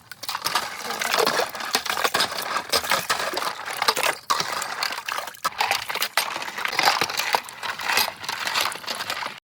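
Busy clattering and rustling of objects being handled, with many small knocks and clinks close together; it cuts off abruptly near the end.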